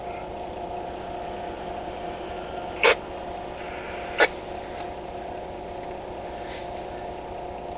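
A vehicle engine idling with a steady hum, heard from inside the cab. Two short sharp sounds break in about three and four seconds in.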